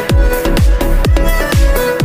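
Electronic dance music with a steady kick drum about twice a second, each kick a falling deep thud, under sustained synth chords.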